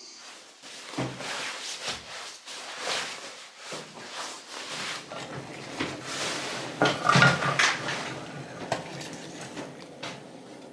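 Metal camping cookware clattering and knocking irregularly as a pot of hot water is handled for porridge and coffee. The loudest clatter comes about seven seconds in.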